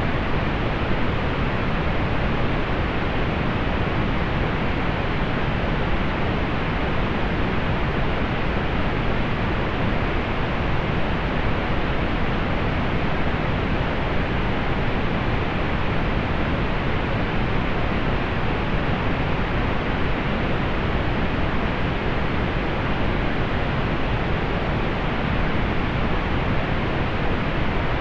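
Steady synthetic pink noise: an even hiss that does not change, fuller in the lows and rolled off in the highs.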